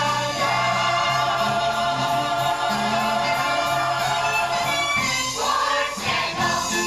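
Stage-musical chorus singing together, holding long notes, with a short break about five seconds in.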